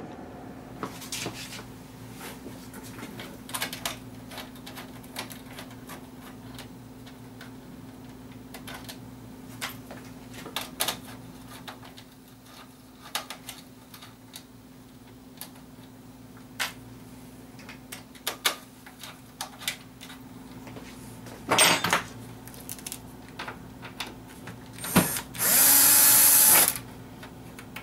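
Bosch cordless drill-driver whirring on a screw in a metal amplifier chassis: a short burst about three-quarters of the way through, then a run of about a second and a half near the end. Before that, scattered clicks and knocks of hands and tools on the chassis over a faint steady hum.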